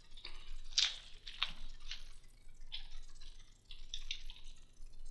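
Knife picking and cutting at the plastic shrink-wrap on a box, with a series of short, irregular scratchy clicks and scrapes.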